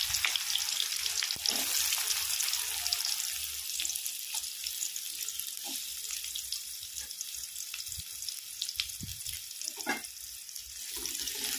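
Chopped onion sizzling in hot oil with cumin and mustard seeds in a kadhai: a steady frying hiss with small crackles and pops. It eases a little in the middle and picks up again near the end.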